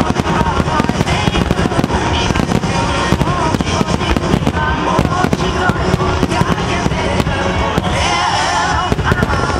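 A dense barrage of fireworks bursting and crackling in rapid succession over music, the kind of music-synchronised starmine fired at Japanese displays.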